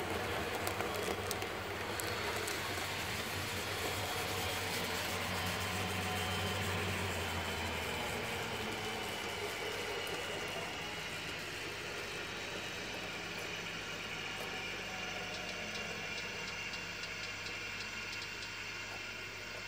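N-scale model trains running on the layout: a low electric motor hum with the rumble of wheels on track, which drops away about eight seconds in as a train runs off, then a faint whine and light rapid clicking near the end.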